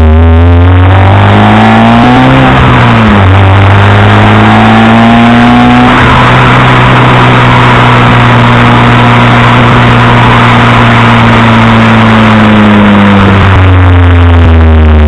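Alfa Romeo 155's engine and exhaust, very loud, pulling up through the revs, with a sharp drop like a gear change about three seconds in. It climbs again, holds nearly steady revs for several seconds, then the revs fall away near the end.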